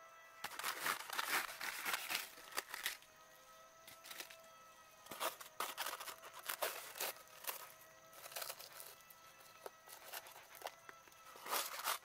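Dry, papery nest comb crackling and tearing in irregular bursts as the tiers of a giant wasp nest are handled and broken apart by hand.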